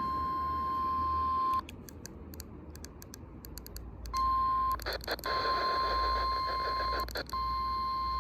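NOAA Weather Radio 1050 Hz warning alarm tone sounding from a weather radio receiver: a steady high tone that drops out about a second and a half in, leaving clicks and crackle for a couple of seconds. It then returns, broken twice by short bursts of static.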